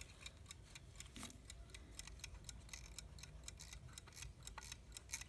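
Faint, quick, even ticking of a running vintage US Time 'Waterbury' alarm clock movement, with light clicks as its hands are turned.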